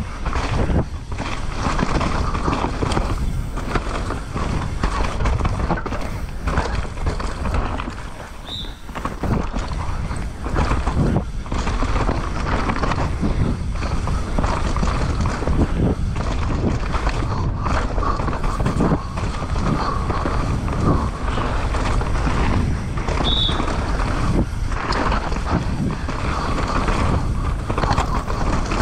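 Downhill mountain bike ridden fast down a dirt trail, heard from the rider's action camera: tyres on dirt, the bike rattling and knocking over bumps and roots, and wind rumbling on the microphone. Two short high squeaks, one about nine seconds in and one later on.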